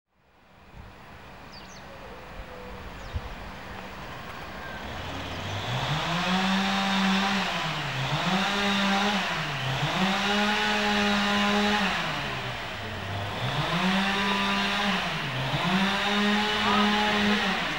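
A motor engine revving up and down over and over: each time the pitch rises, holds for a second or two and drops back, about five times, after a rising stretch of steady engine noise.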